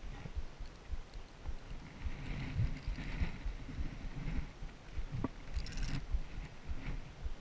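Wind rumbling on a head-mounted camera's microphone, with small handling noises as an angler works a tangled line on a baitcasting rod and reel, and a brief rustle a little past halfway.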